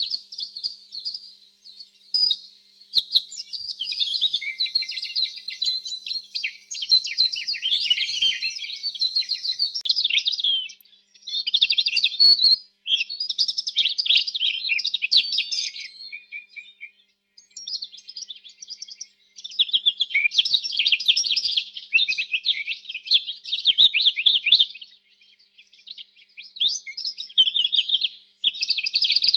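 Domestic canary singing: long runs of rapid, high trills and chirps, broken by short pauses.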